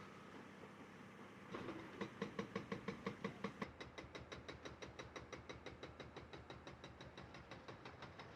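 Rapid, even mechanical hammering, about five or six blows a second, starting about a second and a half in; it is loudest for the first two seconds and then goes on more softly.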